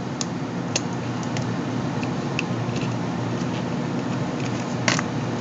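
Small sharp clicks and taps of hard plastic and metal parts being handled as fingers work at a GPS unit's circuit board and connectors, one louder click about five seconds in, over a steady background hum.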